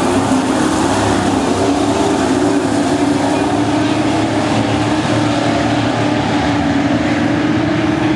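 Engines of a pack of dirt-track stock race cars running around the oval, a steady drone whose main note rises slowly in pitch.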